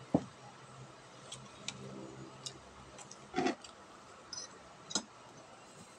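Tableware sounds of eating: scattered light clicks of a spoon and hands on ceramic plates and a bowl, with a sharp click just after the start and a heavier knock about three and a half seconds in as a plate of boiled cassava is moved on the table.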